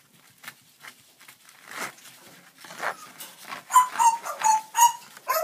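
Pet bird calling: a couple of single calls, then a quick run of about five loud, repeated calls near the end.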